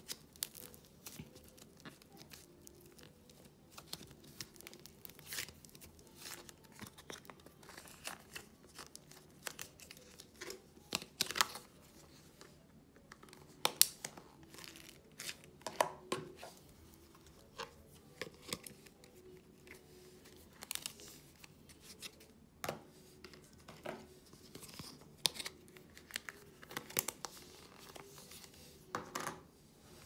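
Soft air-dry clay being squeezed and pulled apart by hand: a run of irregular, sticky crackles and small snaps, some louder than others.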